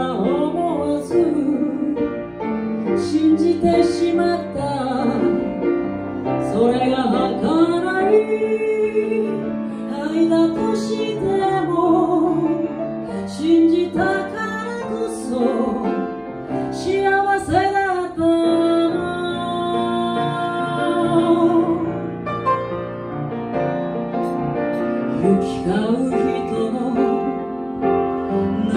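A female vocalist singing a chanson with piano accompaniment, in a live performance with long held notes sung with vibrato.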